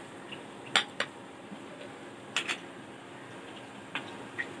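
Dishware clinking and tapping as a small glass bowl of sauce is set on a serving plate: several short sharp clinks, the loudest about a second in and a quick pair about two and a half seconds in.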